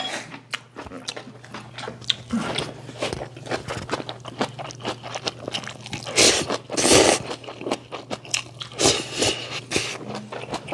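Ramen noodles being slurped and chewed: wet mouth clicks and smacking throughout, with louder slurps about six to seven seconds in and again around nine seconds.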